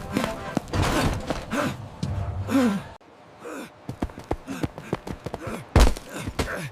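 Wordless voice sounds, short sighs and groans rising and falling in pitch, mixed with scattered clicks and knocks, with a heavy thud near the end.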